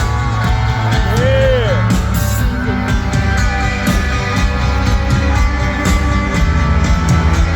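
Live rock band playing loud through a concert sound system: drums with a steady beat, heavy bass, guitar and a singing voice.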